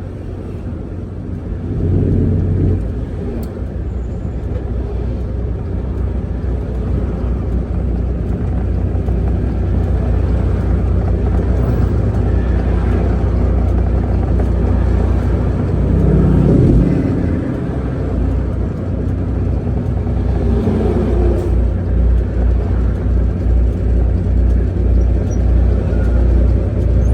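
Semi-truck's diesel engine running at low speed, a steady low rumble with louder surges about two seconds in, around sixteen seconds and around twenty-one seconds.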